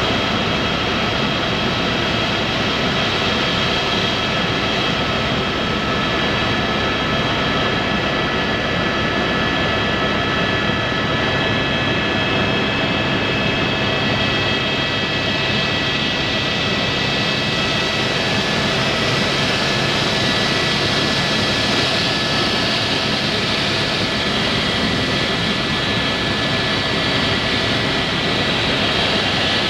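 Helicopter in flight, heard from inside the cabin: a steady engine whine with several high, even tones over a constant rush of rotor and engine noise.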